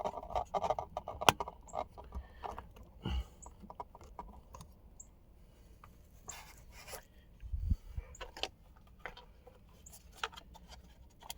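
Handling noise from a camera being adjusted on its tripod: scattered clicks, taps and short scrapes close to the microphone, with the sharpest click about a second in and a dull knock about halfway through.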